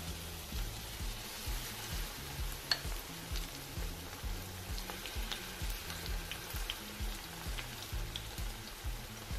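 Corn fritters frying in hot oil in a nonstick pan: a steady sizzle with scattered pops and crackles. Background music with a low, steady beat plays underneath.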